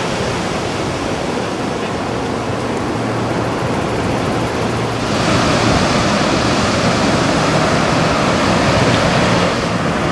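Ocean surf breaking and washing up the shore: a steady rush of noise that grows louder about five seconds in.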